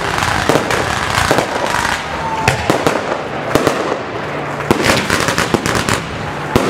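Fireworks display going off: a rapid, irregular string of sharp bangs and crackles from many shells over a continuous hiss.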